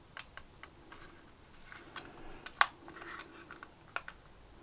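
Button clicks and finger handling on a Sony MZ-R70 MiniDisc Walkman: about a dozen irregular small plastic clicks, one louder than the rest a little past halfway. The player does not start.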